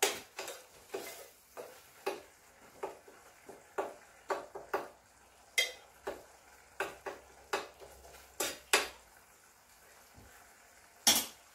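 Metal spoon stirring and scraping in a stainless-steel saucepan, clinking against the pan about once or twice a second as garlic and shrimp paste are sautéed. Two louder knocks come near the end.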